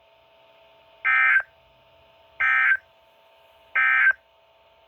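Three short, identical bursts of warbling digital data tones from a NOAA Weather Radio broadcast, evenly spaced about a second and a half apart: the SAME end-of-message code that closes the severe thunderstorm warning. A faint steady hum lies under them.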